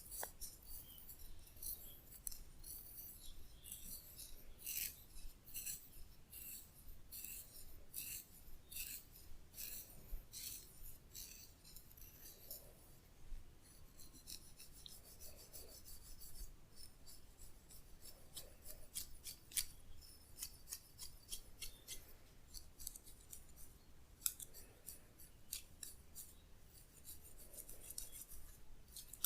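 Fingers rubbing and scratching through hair and scalp in a head massage: a fast run of crisp, high-pitched scratchy strokes, several a second, denser and finer for a few seconds near the middle.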